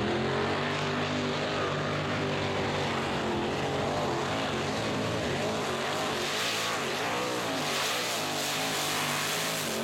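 Mini pulling tractor's racing engine running flat out under full load as it drags the weight-transfer sled down the track: a loud, steady engine note whose pitch wavers slightly.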